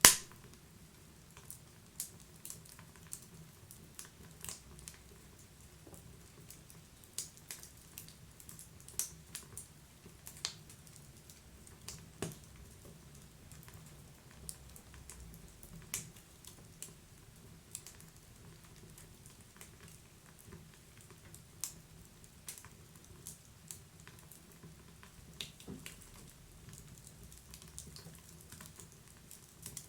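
Wood fire crackling: irregular sharp pops and snaps, a few a second at most, over a faint low rumble, with one much louder pop right at the start.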